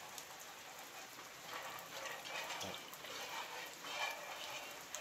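Soft, irregular splashing and dripping of water in a plastic basin as hands rub and pluck a scalded duck.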